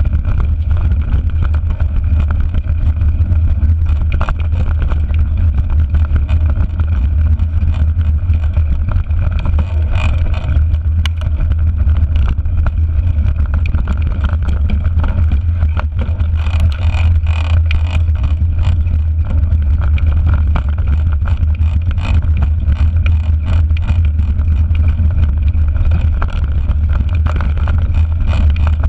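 Wind rumble on a handlebar-mounted GoPro's microphone as a mountain bike rides over a rough dirt and stony track. The bike rattles and clicks over bumps, more busily about ten seconds in and again a little past the middle.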